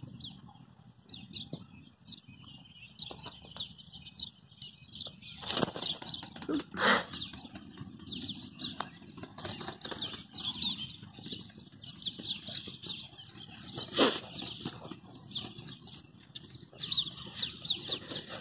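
Small birds chirping and twittering continuously over a low wind rumble, with a few sharp knocks about five and a half, seven and fourteen seconds in.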